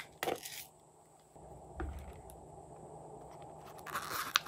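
Small plastic slime containers handled over a glass tray. There are a few light knocks and clicks, then a short scratchy rustle ending in a sharp click near the end as a pop-it-shaped plastic case is handled.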